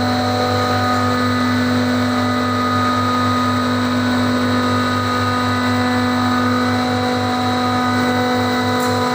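HVAC chiller plant machinery running: a loud, steady hum made of several fixed tones, with a fast low throb underneath.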